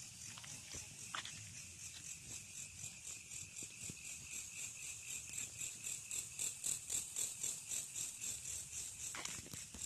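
Night insects chirping in an even, high-pitched pulsing rhythm, about three pulses a second, loudest through the middle. There are a few footsteps on paving, one near the start and one near the end.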